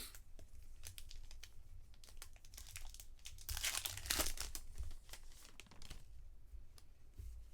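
Baseball trading cards being handled and slid against one another, a run of small clicks and rustles, with a longer, louder rustle about three and a half seconds in.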